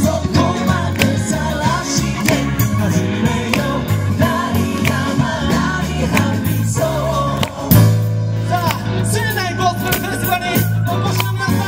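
A gospel vocal group singing live through a PA, a lead voice over backing singers with instrumental backing. The music drops out briefly about seven and a half seconds in, then resumes with a strong deep bass.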